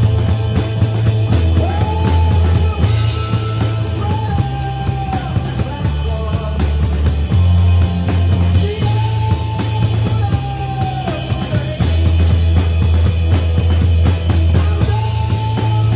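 Drum kit played along to a recorded rock song with guitar and singing: regular cymbal strokes and drum hits over the record's stepping bass line. The snare sounds muffled under a cloth cover laid on it to keep it from being too loud.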